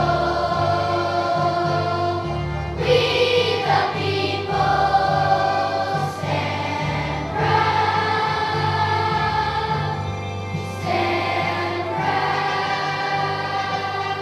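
Children's choir singing in unison, in long phrases of held notes with short breaks between them.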